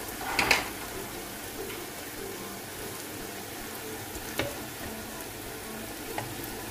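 Jalebi batter spirals deep-frying in hot oil, with a steady sizzle. A loud burst of crackling comes about half a second in, and a couple of sharp clicks follow later as a spatula touches the pan.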